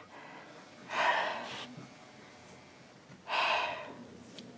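Two sharp, breathy gasps from a person, about two seconds apart.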